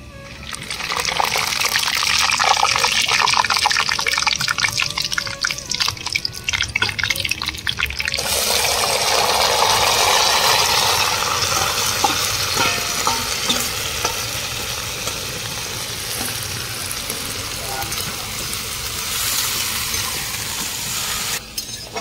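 Food sizzling in hot oil in a cooking pan. It is a crackling, spitting stretch at first; about eight seconds in it changes suddenly to a loud, steady hiss that slowly dies down, as when wet ingredients go into the hot pan.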